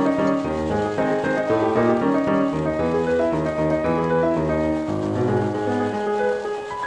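Piano music, a quick run of notes, dipping slightly in level just before the end.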